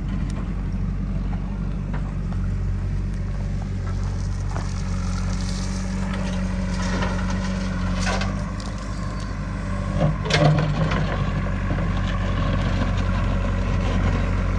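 Heavy diesel machinery engine running steadily, with a few sharp knocks about seven to eight seconds in and a louder clattering burst about ten seconds in.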